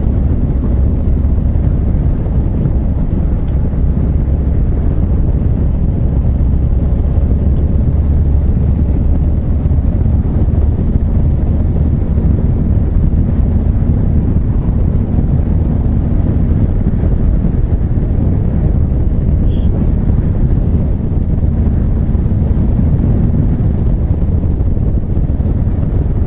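Honda CB1300 Super Bol d'Or's inline-four engine running at a steady cruise, mixed with heavy wind rush on the microphone from riding at speed.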